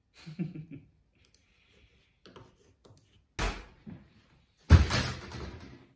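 A door thuds about three and a half seconds in. About a second later it is slammed hard, with a rattle that dies away over a second.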